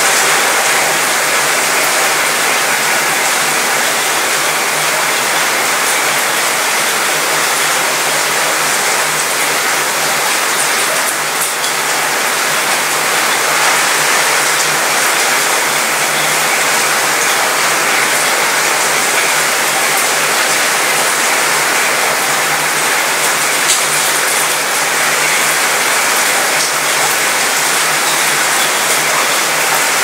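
Steady rain falling on a cruise ship's mostly metal balcony and railing: a dense, even hiss that rattles around the metal. A faint low hum runs underneath.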